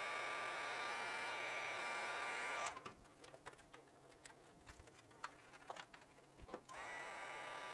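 Electric heat gun blowing with a steady hiss and a faint whine while shrinking heat-shrink tubing over wiring connectors. It cuts off abruptly about two and a half seconds in, is followed by small clicks and taps as the wires and connectors are handled, and starts blowing again near the end.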